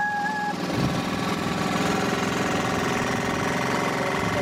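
An engine running steadily at an even speed, a dense, continuous hum with a fine regular pulse.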